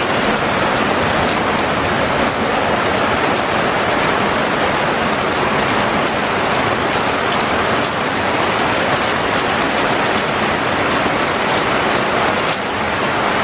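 Heavy rain falling steadily, a dense, even hiss of drops with no letup.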